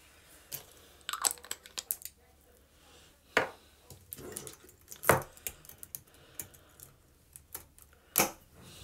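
Close-up handling noise right at the phone's microphone: an irregular run of clicks, taps and rustles, with louder knocks about three, five and eight seconds in.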